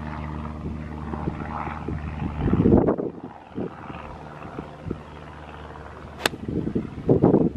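One sharp click of a golf iron striking the ball about six seconds in, over a steady low engine drone. Wind buffets the microphone a little before halfway and again near the end.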